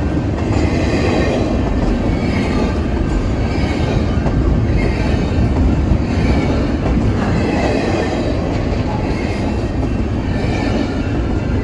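Freight train of double-stack container well cars rolling past at close range: a steady rumble of steel wheels on the rails, with a faint high wheel squeal coming and going.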